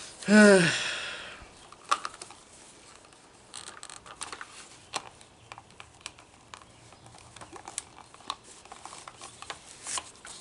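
A short vocal groan falling in pitch near the start, then scattered small clicks and rustles of the plastic trimmer head and nylon line being handled.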